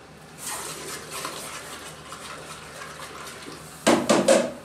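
Hot forged square bar stock plunged into a water bucket to quench it: a steady hiss of sizzling water, with a short burst of louder noise near the end.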